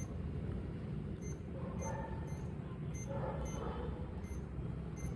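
mSwipe card payment terminal beeping with each key press as a number is typed on its keypad: about ten short, high beeps at irregular intervals over a low background hum.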